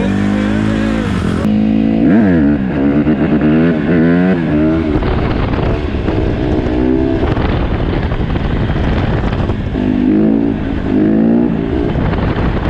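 Single-cylinder engine of a 150cc dirt bike being ridden, revving up and down over and over as the throttle is worked, with pitch swings about two seconds in and again near the end.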